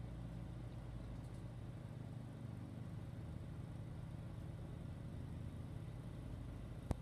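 Two-stage snowblower's small engine running steadily as it clears deep snow, heard through window glass. One sharp click just before the end.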